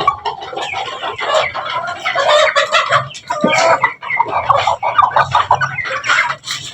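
A flock of desi chickens clucking and calling over one another without a break, with one call sliding down in pitch about halfway through.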